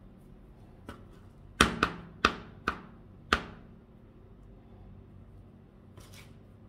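A run of sharp knocks on a hard surface, five loud ones in under two seconds each with a short ring, then a soft brushing rustle near the end, as dough is shaped and the improvised mould is handled on the table.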